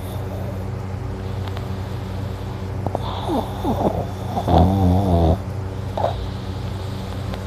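A sleeping man snoring: one loud snore about four and a half seconds in, lasting nearly a second, after a few faint clicks. A steady low hum runs underneath.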